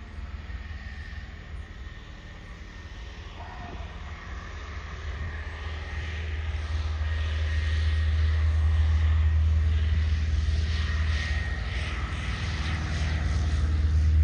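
Propeller-driven airplane seeding a cover crop, taking off heavily loaded, its engine growing steadily louder as it comes closer.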